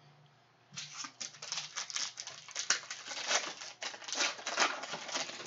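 Foil trading-card pack wrapper being torn open and crinkled by hand: a dense, irregular run of sharp crackles starting about a second in.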